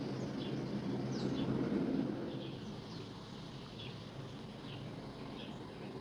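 A small bird chirping repeatedly, short high falling chirps about one or two a second, over a steady low background hum that eases off about two seconds in.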